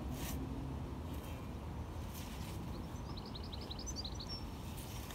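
A small bird's quick run of about ten short, high chirps around three seconds in, over a steady low outdoor rumble, with a couple of brief rustles of leaves.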